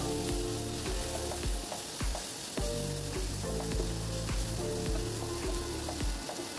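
Chopped capsicum, carrot and onion frying in a non-stick pan, sizzling while a wooden spatula stirs them, with short clicks and scrapes of the spatula against the pan. Background music with held notes plays underneath.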